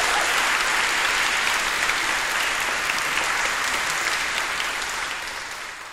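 Audience applauding steadily, the clapping fading out near the end.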